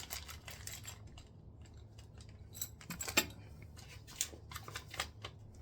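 Scattered light metallic clicks and scrapes of hand tools and toilet hardware being handled, with a few sharper clicks about three, four and five seconds in, over a faint steady low hum.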